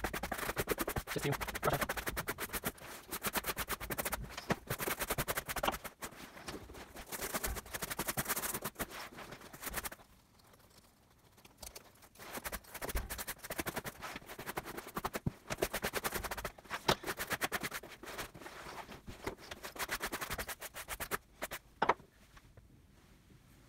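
Horsehair brush scrubbing over dry, worn leather of a jacket in rapid back-and-forth strokes, the brushing-out done before conditioning. The brushing stops for a couple of seconds midway, resumes, and dies away near the end.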